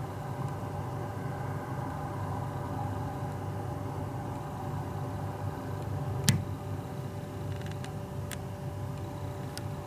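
Boeing 737 jet airliner's CFM56 engines running at idle while taxiing, a steady hum and whine. A single sharp click comes about six seconds in, followed by a few faint ticks.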